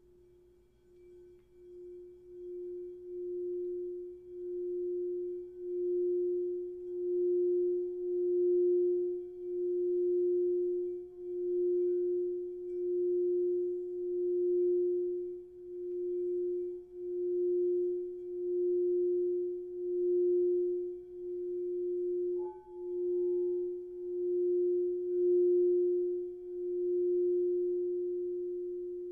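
Crystal singing bowl sounding one pure, steady low tone that swells up gradually and wavers in loudness about every two seconds, the way a bowl sings when a mallet is circled around its rim. About 22 seconds in a brief tap sounds and a higher tone joins for a few seconds.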